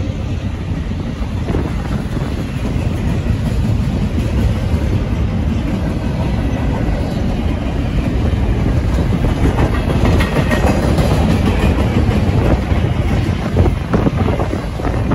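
Double-stack intermodal well cars of a long freight train rolling past, steel wheels rumbling steadily on the rail, with a few sharp clanks about two-thirds of the way through and again near the end.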